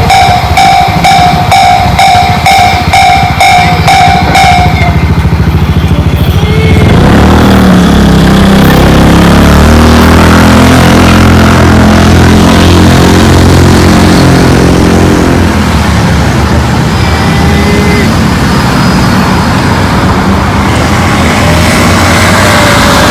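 JR-standard level crossing warning bell ringing about twice a second, stopping about five seconds in. Then road vehicles drive across the crossing; one engine's note rises and falls for several seconds.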